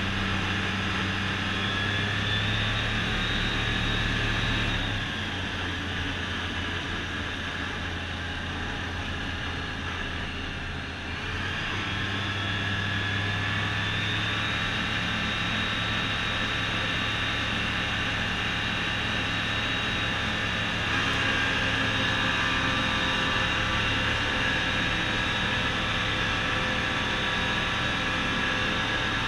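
Rotax 912 iS Sport flat-four engine and propeller of an F6 Hydran amphibious light aircraft in flight, heard from inside the cabin as a steady drone. The drone dips slightly about five seconds in and comes back up around twelve seconds, and is a little louder again past twenty seconds.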